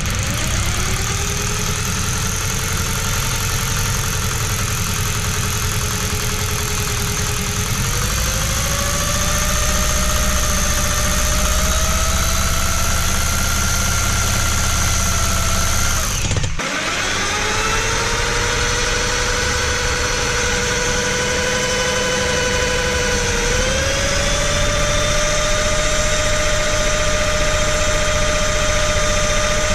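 Electric drill spinning a Scintilla Vertex magneto by its drive shaft to test it for spark. A steady motor whine speeds up in steps, cuts out briefly just past halfway, then starts again and speeds up twice more.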